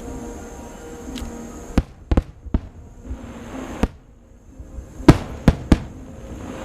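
Aerial fireworks shells bursting in sharp bangs: a cluster of four about two seconds in, one near four seconds and a louder group of three around five and a half seconds, with crackling between the bursts.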